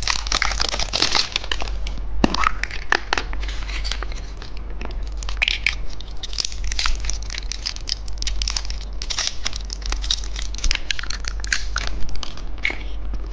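Plastic wrapping of a candy surprise egg crinkling and tearing as it is unwrapped and opened, with many small clicks and rustles throughout.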